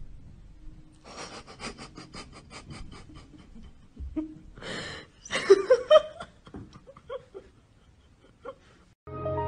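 A person laughing under their breath in quick breathy puffs, then a louder burst of wheezy laughter about five seconds in.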